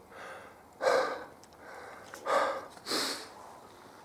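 A man breathing hard, a few loud gasping breaths in and out: he is out of breath from climbing a steep slope under a heavy backpack.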